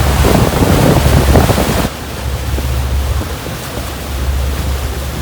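Wind buffeting the microphone over the rush of sea water on a boat ride. The noise is loud and gusty at first, then drops off suddenly about two seconds in and carries on more quietly.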